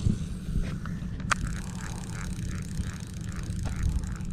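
Low, steady rumble of wind buffeting the microphone, with one sharp click about a second in.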